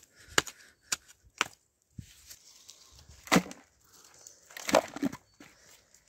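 Metal hoe chopping into forest soil: three quick, sharp strikes in the first second and a half. About halfway through come two louder, heavier thuds of loose earth going into a plastic bucket.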